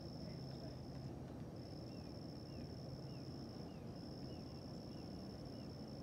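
Insects trilling: a steady high-pitched trill that breaks off briefly a few times. From about two seconds in, short chirps repeat roughly every half second, over a low steady rumble.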